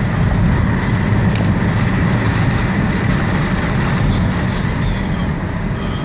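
Car engine and road noise heard from inside the cabin while driving, a steady low drone that eases slightly as the car slows from about 45 mph.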